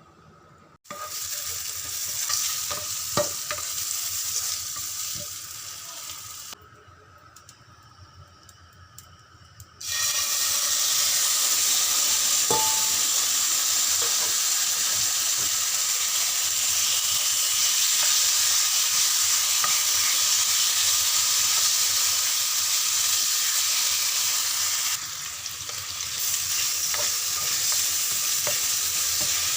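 Food sizzling as it fries in hot oil, with a few clicks of a utensil stirring. The sizzle stops for a few seconds, then starts again louder and runs steadily, with a brief drop near the end.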